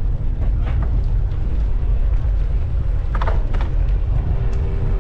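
Wind buffeting the microphone of a moving bike, a steady low rumble, with a few short sharp sounds about three seconds in.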